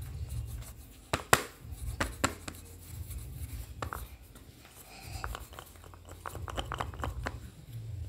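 A plastic toy rolling pin rolled back and forth over a slab of clay on a tile floor: a low rumble with each stroke, several strokes in a row, with scattered sharp clicks, the loudest just over a second in.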